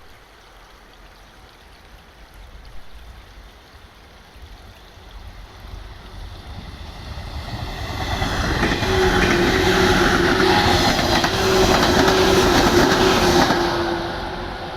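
A train approaching and passing close by on the rails, building from faint to loud and clattering, with a steady droning tone while it is loudest, then fading near the end.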